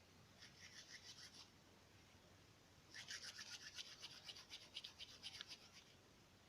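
Dried nettle fibres rubbed briskly between the palms to soften them: a soft, scratchy rustle of quick back-and-forth strokes. It comes in two bouts, a short one near the start and a longer one from about three seconds in.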